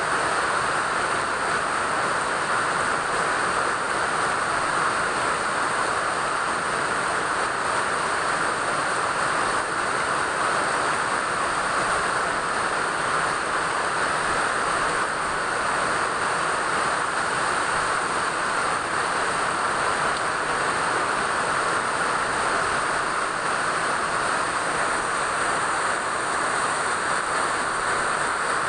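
Steady rain falling, a continuous even hiss with no let-up and no single drops standing out.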